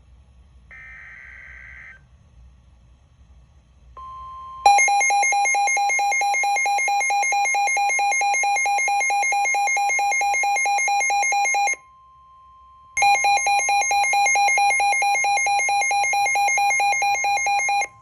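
Emergency Alert System broadcast tones opening a new alert. A short burst of buzzing SAME digital header data comes first. Then a steady electronic tone starts, joined by a loud, rapidly pulsing electronic alarm tone that breaks off for about a second midway and resumes.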